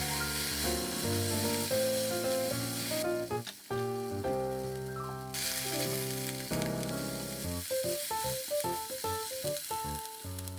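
Background music with a steady sizzle of food frying in a pan behind it; the sizzle breaks off for about two seconds near the middle while the music plays on.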